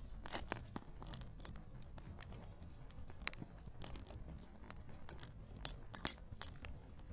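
Wood campfire crackling, with irregular sharp pops and snaps.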